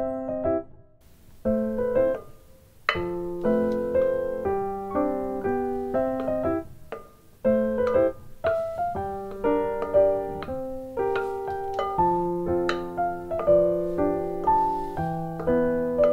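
Background music: a piano tune of short, separate notes and chords.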